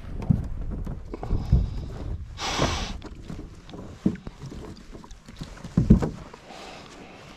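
Irregular dull knocks and thumps on a riveted metal boat's bow deck as the anchor rope is handled at the bow fitting, the loudest near the end. A short hissing rush about two and a half seconds in.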